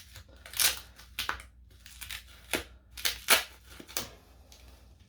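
Adhesive tape being pulled off the battery's cells in about six short, sharp tugs, with handling noise between them.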